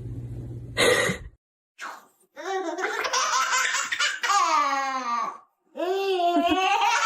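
Loud, high-pitched laughter in two long peals, each falling in pitch toward its end.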